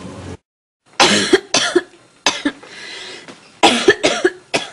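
A person coughing in two short fits of about four coughs each, the first starting about a second in and the second near the end.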